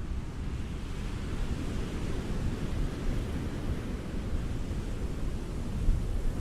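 Ocean surf washing onto a beach: a steady rush of waves with a deep low rumble.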